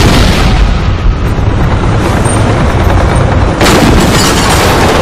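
Battle sound effects: explosions and gunfire over a continuous low rumble, with a sudden new blast about three and a half seconds in.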